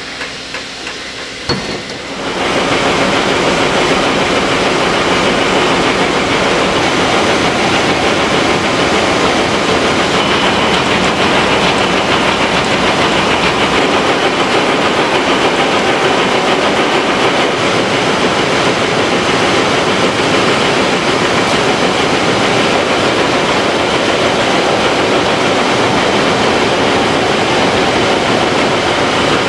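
Towel weaving looms running together in a weaving hall: a loud, dense, steady mechanical clatter that starts suddenly about two seconds in, after a quieter moment with a few clicks.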